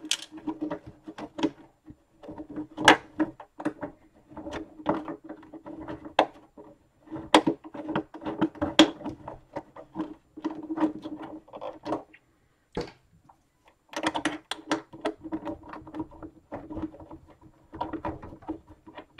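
Irregular small clicks, taps and scraping of a screw being worked by hand into a clip nut on the plastic Proton Pack shell and its mounting bracket. There is a short lull about two-thirds of the way through, then the handling starts again.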